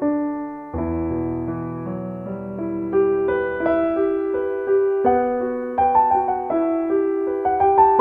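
Background piano music: a slow melody of single notes and chords, each struck and left to ring.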